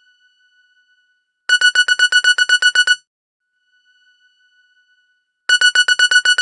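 Nokia N70 ringtone ringing: one high electronic tone trilled rapidly, about seven pulses a second, in bursts of about a second and a half. A burst comes about a second and a half in, and another starts near the end. A faint held tone of the same pitch fills the gaps between bursts.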